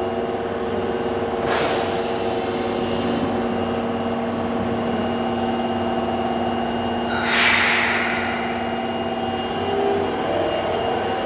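Tanimachi Line subway train standing with a steady electrical hum, broken by two short hisses of released air, about 1.5 s and 7 s in. Near the end a faint rising whine begins.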